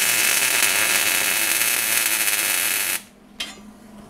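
MIG (wire-feed) welder arc crackling steadily while laying a tack weld on the steel battery-tray bracket, cutting off abruptly about three seconds in, followed by a single click.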